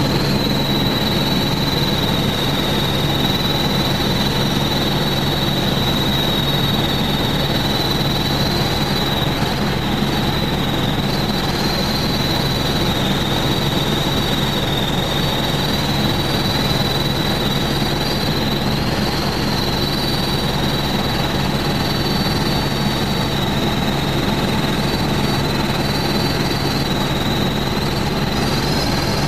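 Helicopter in flight: steady engine and rotor noise with a constant low hum and a high-pitched whine over it.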